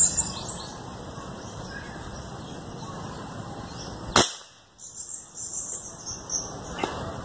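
A single air rifle shot about four seconds in, one sudden sharp report standing out over steady outdoor background noise, with a fainter click near the end.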